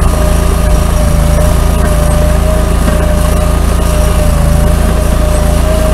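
Compact tracked trencher's engine running steadily under load as its digging chain cuts a trench through clay soil, with a steady whine over the engine note.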